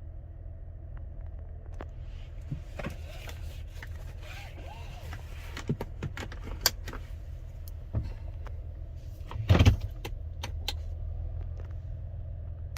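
Chevrolet Traverse engine idling with a steady low rumble, while scattered clicks and knocks of handling in or around the car come and go. A louder short thump about ten seconds in.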